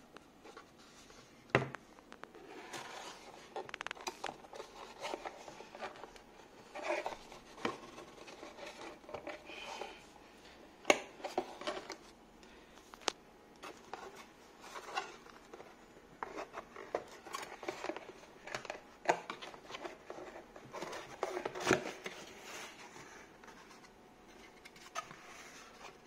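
Corrugated cardboard box being handled and opened: flaps and panels scraping and rubbing, with irregular taps and knocks.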